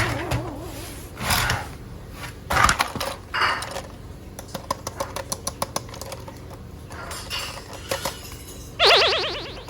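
Plastic toys being handled, with scattered clicks and knocks and a run of rapid small clicks in the middle, then a short warbling electronic toy sound effect near the end.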